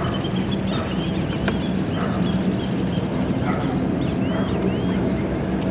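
Steady low rumbling hum, which the recordist takes for 'the Hum' (el zumbido) rising in the background. Small birds chirp over it in short rising-and-falling notes, and there is a faint click about a second and a half in.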